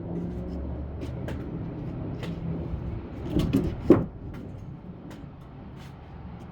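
An engine running steadily at a low idle, with scattered light clicks and a brief cluster of louder knocks about three and a half to four seconds in.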